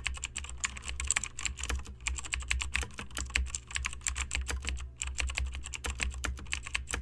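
Computer keyboard typing sound effect: rapid, irregular key clicks that pause briefly about five seconds in.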